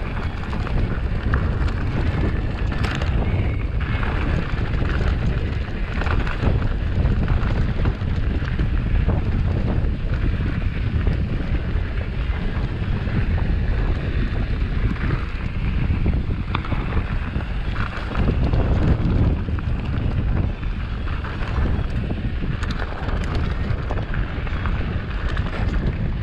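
Wind buffeting the microphone over the rumble of a Polygon Siskiu T7 full-suspension mountain bike rolling downhill over loose rocky gravel, with scattered clicks and knocks from stones and the bike rattling.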